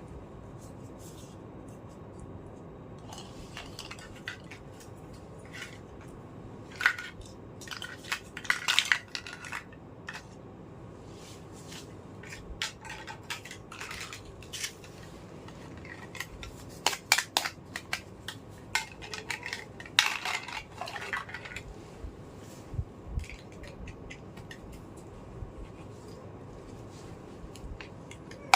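Small plastic toy kitchen pieces and toy fruits and vegetables being handled, clicking and clattering against each other in scattered bursts, busiest about a quarter of the way in and past the middle.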